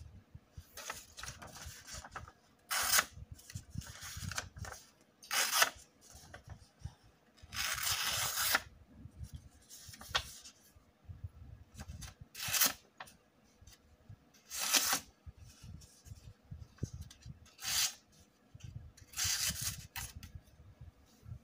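A Cold Steel Pro Lite Sport folding knife slicing through sheets of printer paper, making a series of short cuts every second or two. Paper rustles as the sheets are handled between the cuts.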